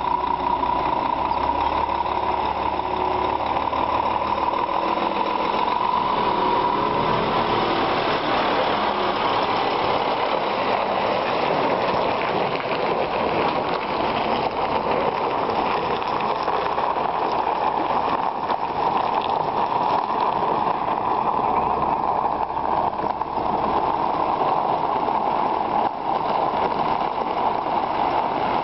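Scania G490 truck's diesel engine running as the tractor unit and grain trailer drive slowly past and pull away. A steady whine sits over the engine in the first several seconds, then louder, rougher engine noise fills in as the truck comes close.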